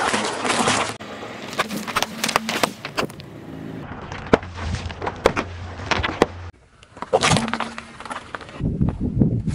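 A car tyre crushing objects on asphalt in several short clips cut together. A loud crunching rush in the first second, then a run of sharp cracks and pops over a low steady hum, then more crunching near the end.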